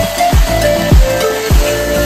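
Background music with a deep, pitch-dropping bass drum about twice a second under a held melody line.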